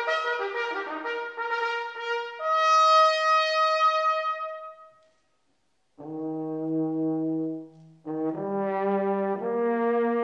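Brass band playing a hymn. A phrase ends on a held note about five seconds in, there is a short silence, and then a new phrase begins with low sustained chords that fill out and step upward.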